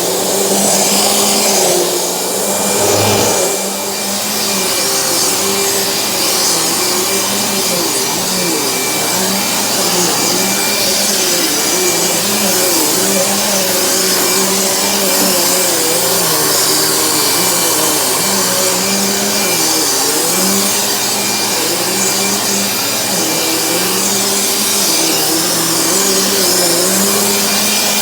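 Dirt Devil Featherlite bagged upright vacuum running steadily: a motor hum with rushing airflow, the pitch wavering slightly, with a brief drop in level about three seconds in.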